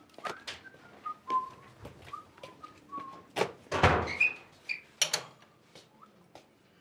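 Someone whistling a short tune of quick notes with small slides between them, followed about halfway through by a few sharp knocks and a brief clatter of things being handled in a small room.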